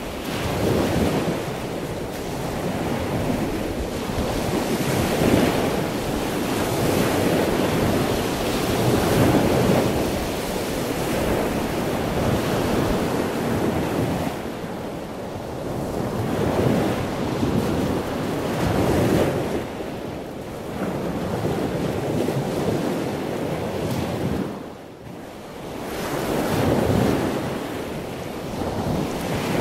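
Sea surf washing onto the shore, a continuous roar of breaking waves that swells and eases every few seconds, with a brief lull near the end. Wind buffets the microphone.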